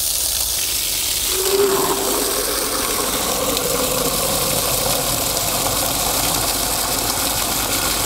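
Water gushing from a fully opened garden tap, first splashing onto concrete, then from about a second in pouring steadily into a 5-litre plastic bucket. A faint note rises slowly in pitch as the bucket fills. It is a bucket test of the tap's flow rate, and the bucket fills in about 7 seconds.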